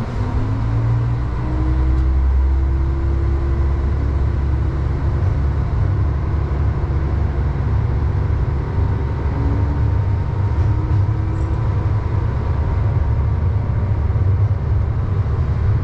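Diesel railcar engine pulling away under power, its note rising over the first few seconds and then holding, with a heavy low rumble and a faint steady whine.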